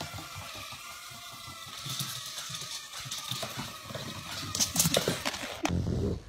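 A dog's claws clicking and scrabbling on a hard floor as it walks and runs. Near the end a small dog starts a low growl.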